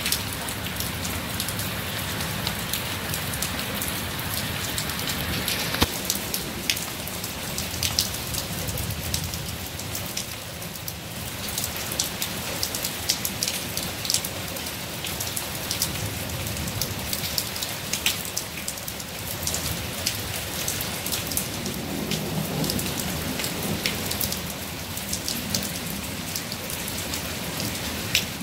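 Steady rain falling on wet pavement: an even hiss with many scattered, sharp drop hits.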